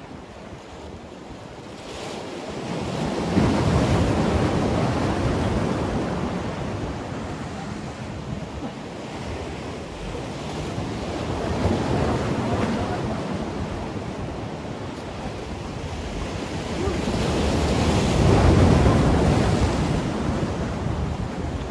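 Sea waves surging and breaking against concrete breakwater blocks, swelling three times, with the last swell the loudest. Wind buffets the microphone throughout.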